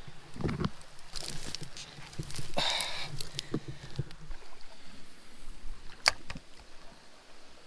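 Dry grass and brush rustling and crackling as someone pushes through it on foot, with scattered snaps and footfalls, a louder rustle about three seconds in and a sharp snap about six seconds in.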